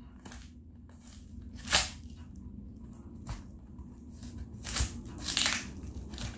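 Packing tape being peeled and torn off a cardboard shipping box by hand, in short ripping and scraping pulls; one loud rip about two seconds in and a cluster of them near the end.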